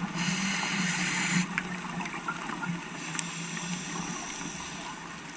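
Underwater sound heard through a scuba diver's camera: a hiss from the diver's regulator for about a second near the start, then quieter water noise with scattered short clicks over a low steady hum.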